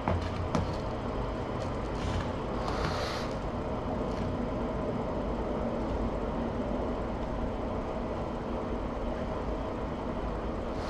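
Steady low hum and hiss of room noise picked up by a live-cam microphone, with a couple of faint knocks near the start and a short hissy burst about three seconds in.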